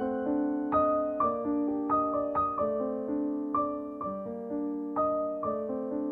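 Background piano music, single notes and chords struck one after another and left to ring.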